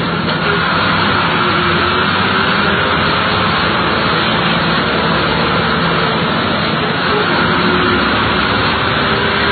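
Bus engine and road noise heard from inside the moving bus's cabin: a steady low engine drone under an even rush that holds at one level throughout.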